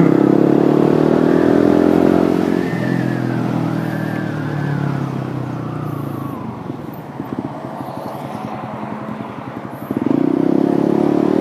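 Yamaha M-Slaz 150cc single-cylinder motorcycle engine heard from the rider's seat. It runs on the throttle, eases off and runs lower and rougher while slowing, then picks up again about ten seconds in.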